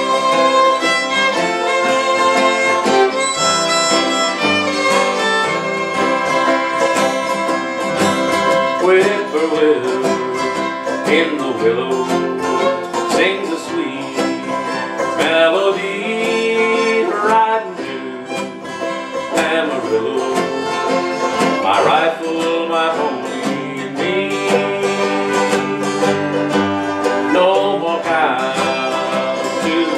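Instrumental break played by fiddle, banjo and two acoustic guitars together, the fiddle carrying held and sliding notes over the strummed and picked strings.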